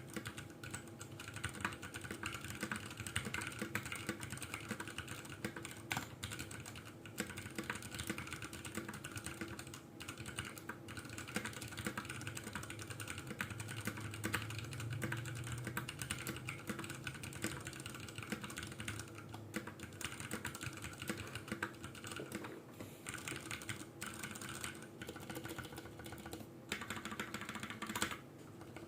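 Continuous fast typing on a Ducky Mecha Mini mechanical keyboard with stock Cherry MX Brown switches and PBT keycaps: a dense run of key clacks with brief pauses.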